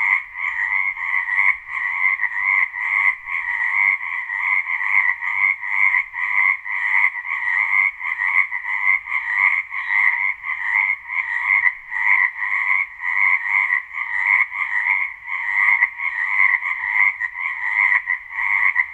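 Frog croaking over and over at a steady pitch, the calls following each other about twice a second without a break.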